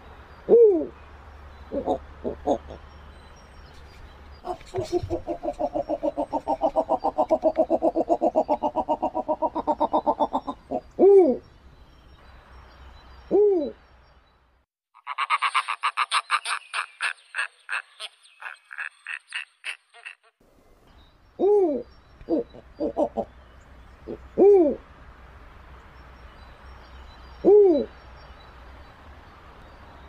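Snowy owl calls: single short hoots, each rising and falling in pitch, repeated at uneven intervals. In the first half comes a long run of fast, even pulses lasting about six seconds. Soon after, a higher-pitched, rapid chattering series lasts about five seconds.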